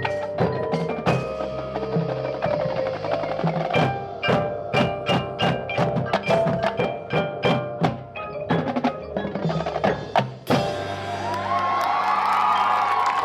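High school marching band playing, percussion to the fore: a run of rapid strikes on drums, bells and mallet keyboards with ringing notes, building to a loud hit about ten seconds in, after which the band holds a sustained chord.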